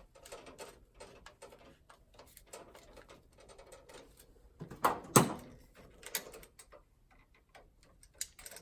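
Scattered small clicks and taps of a screwdriver and wires being handled at an electrical receptacle, with a louder knock about five seconds in.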